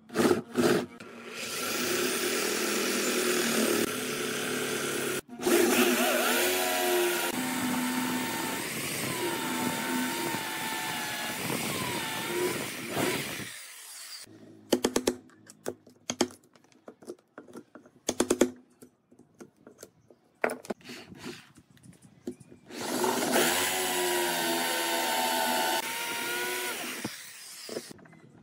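Corded electric drill boring into a pine post with a long wood bit. The motor runs with a wavering pitch, breaks off for a moment about five seconds in, and stops about halfway through. Scattered clicks and knocks follow, then the drill runs again for about three seconds near the end.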